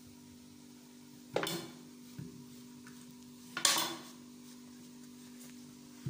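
Two short clatters on a ceramic plate as peeled taro or the knife is set down, about a second and a half and three and a half seconds in, over a steady low hum.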